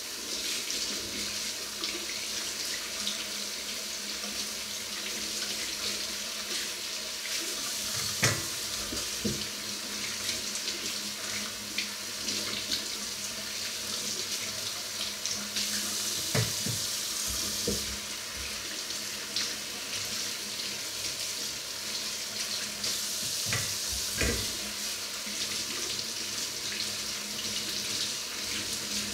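Kitchen tap running steadily into a stainless steel sink while potatoes are rubbed clean by hand under the stream. Three sharp knocks are spread through it.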